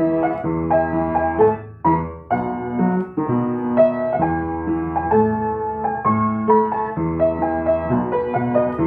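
Solo piano playing a gentle melody over low chords, with a short break in the phrase about two seconds in.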